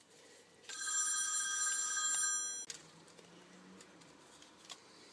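A telephone ringing: one steady ring of several high tones lasting about two seconds, starting under a second in and cutting off suddenly. A few faint clicks follow near the end.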